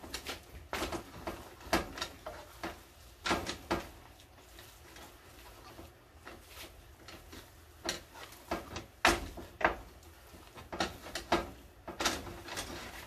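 Irregular kitchen handling noises: a scatter of short knocks and clatters, as of utensils and cookware being handled at the stove.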